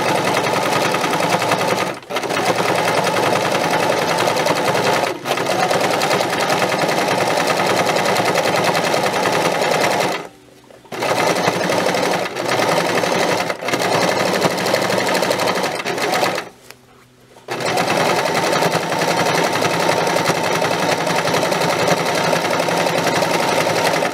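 Electric sewing machine running steadily as it top-stitches around a padded cotton piece. It stops for about a second twice, about ten seconds in and again near sixteen seconds, and slows briefly a few other times.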